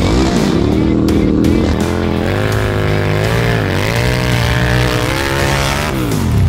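Go-kart engines revving hard on snow, the pitch climbing and dropping again and again as the throttle is worked, with a long falling drop near the end as the throttle comes off.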